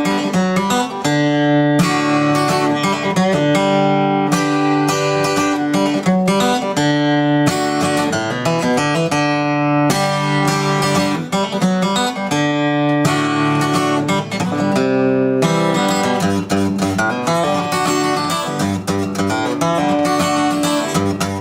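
Background music led by strummed and plucked acoustic guitar, with a steady rhythm.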